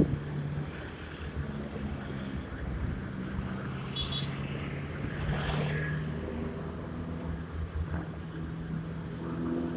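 Honda Scoopy scooter's single-cylinder engine running steadily while riding in traffic, with road noise around it.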